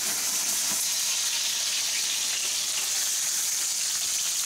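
Steaks sizzling steadily in hot oil in a heavy cast-iron skillet, an even, high hiss.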